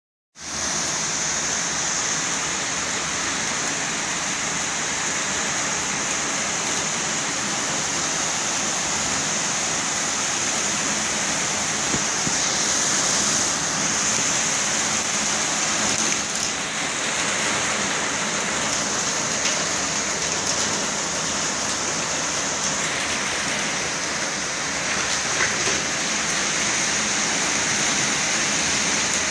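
Torrential summer rain pouring down in a steady, even hiss.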